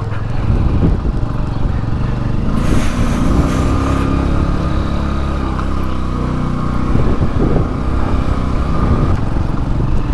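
A loaded 150cc motorbike's engine running under way. Its pitch rises about two and a half seconds in, then holds steady.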